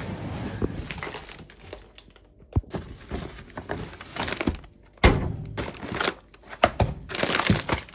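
Grocery items and plastic shopping packaging being handled: a few separate knocks as items are set down, with crinkling between them.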